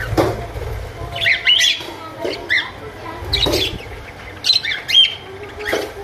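Budgerigars in an aviary giving short, sharp chirps and squawks, several in a row at irregular intervals.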